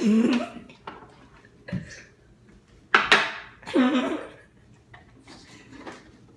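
A few knocks and clinks of kitchen containers being handled, with two short voice sounds, one at the start and one about four seconds in.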